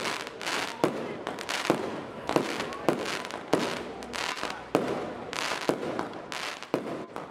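Aerial fireworks going off: sharp bangs about twice a second over a steady crackle of bursting stars.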